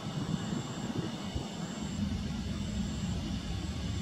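Airbus A320 climbing out after take-off, its jet engines a steady low rumble.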